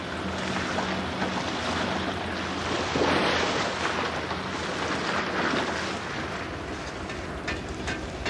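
Steady hum of a fishing boat's engine under the wash of sea water, with a louder splash about three seconds in as a dip net is drawn through the water. A few light clicks near the end.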